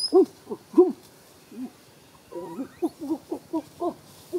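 A series of short hooting calls, each rising then falling in pitch. They come singly at first and quicken to about four a second after about two seconds.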